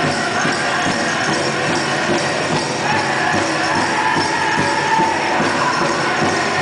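Powwow drum group playing a grand entry song: a big drum beating a steady rhythm under high-pitched singing, with the jingling of the dancers' bells and metal jingles as they pass.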